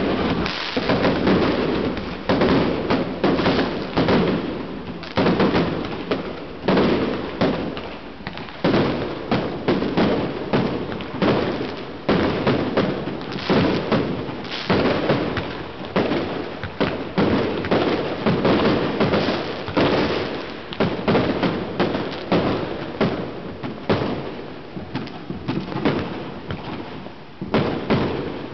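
Chinese New Year fireworks and firecrackers going off in a dense, continuous barrage: many overlapping bangs and cracks every second, with no let-up.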